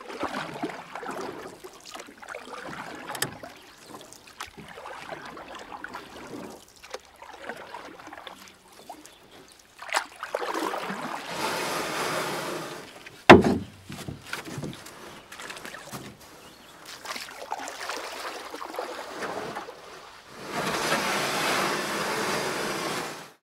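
Water lapping and sloshing against a quay wall in irregular swells, with two longer rushing washes and one sharp knock about halfway through.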